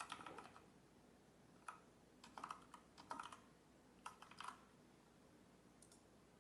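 Faint computer keyboard keystrokes, tapped in short quick clusters with pauses of about a second between them.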